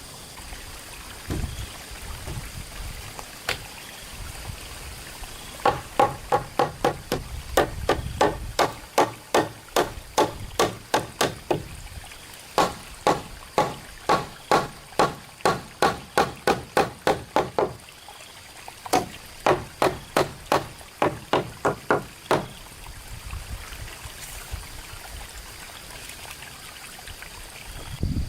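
Repeated sharp strikes of a tool on a hard object, about three blows a second, in three runs separated by short pauses, each blow with a short ringing tone.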